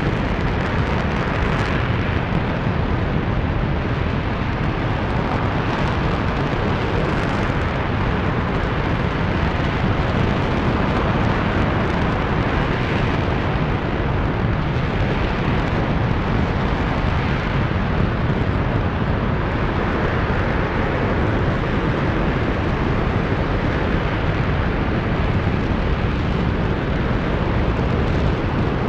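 RS-25 liquid-hydrogen/liquid-oxygen rocket engine firing steadily in a ground hot-fire test: a loud, unbroken, even noise with a deep rumble underneath that holds at one level throughout.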